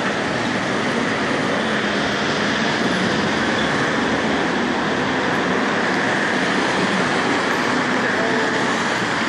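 Steady roar of city road traffic heard from the footpath, an even wash of noise with no distinct events.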